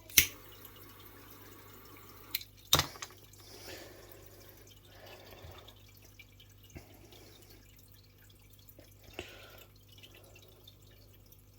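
Hands working paracord with a fid: small handling sounds with a few sharp clicks and knocks, the two loudest just after the start and just under three seconds in, over a low steady hum.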